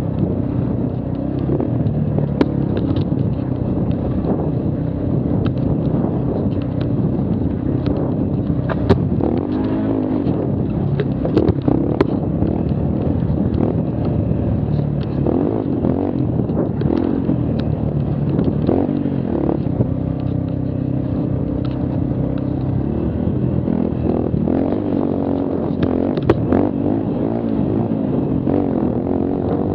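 Mini quad's engine running under way, its pitch rising and falling repeatedly as the throttle opens and closes, with scattered knocks and rattles as it bounces over the trail.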